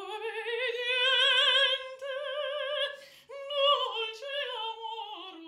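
Mezzo-soprano singing a vocal warm-up with strong vibrato: one long note gliding slowly upward, then after a short break a phrase stepping back down in pitch.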